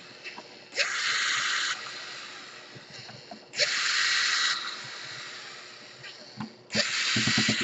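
Small electric screwdriver running in three short bursts of about a second each, a few seconds apart, backing out laptop case screws, with a few light clicks near the end.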